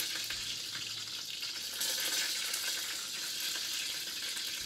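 Kitchen tap running into a sink, a steady hiss of water that grows a little louder about two seconds in.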